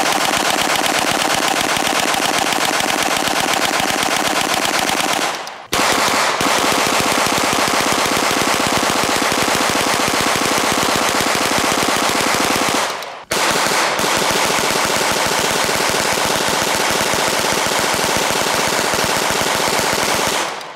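Tippmann Armory hand-cranked 9mm Gatling gun firing 115 grain full metal jacket rounds in rapid, continuous strings from a 50-round drum. The fire comes in three long runs, broken briefly about five and a half and thirteen seconds in, and stops near the end.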